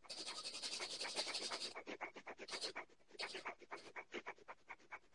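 Rapid, forceful breathing in and out through the nose, about seven or eight short sniff-like breaths a second, fast 'wolf breathing' from a breathing exercise. The breaths are denser in the first second and a half.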